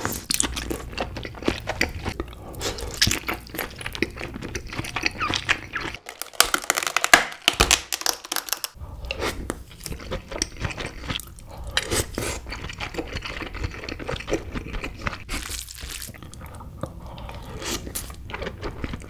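Close-miked eating sounds of king crab: biting and chewing the leg meat and eating spoonfuls from the crab's shell, with many short sharp clicks and wet chewing. The sound changes abruptly a few times between stretches.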